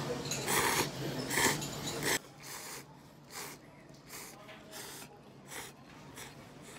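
Person slurping ramen noodles: a run of short, noisy sucking pulls. About two seconds in the level drops abruptly, and fainter slurps follow.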